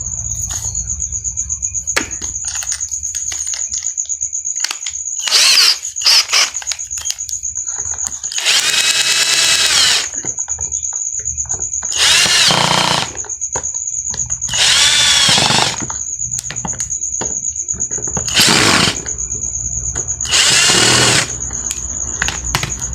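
Makita electric drill motor test-run after its brush springs were replaced. It runs with a steady high whine, and its speed is pushed up about six times, for a second or two each, with the pitch rising and falling.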